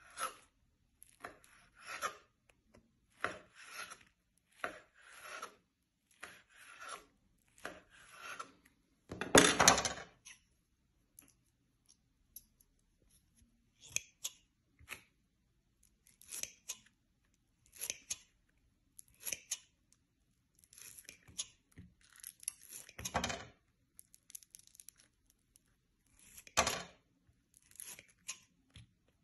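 Metal scissors snipping through green beaded foam clay. The cuts come about once a second at first, then further apart, with the loudest about nine seconds in.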